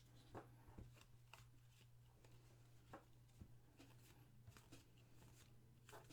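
Near silence, with faint soft flicks and slides of trading cards being handled and turned over one at a time, over a low steady hum.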